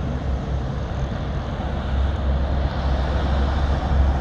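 Steady low rumble of a moving road vehicle, with road and wind noise over it.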